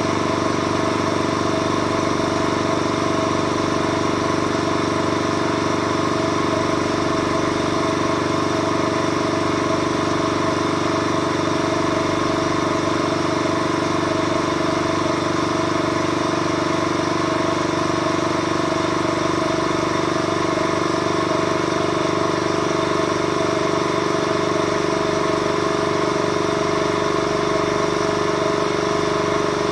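Leybold DIVAC 2.2L diaphragm vacuum pump running steadily, with an even mechanical hum as it pumps down the vacuum chamber.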